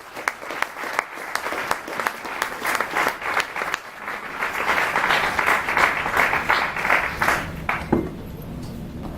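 Audience applauding in a large hall, building up and then stopping about eight seconds in.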